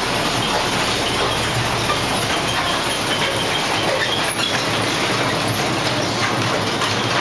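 Miniature ride-on park train running along its track inside a tunnel: a steady rumble and rattle of the wheels and cars, with a few faint clicks.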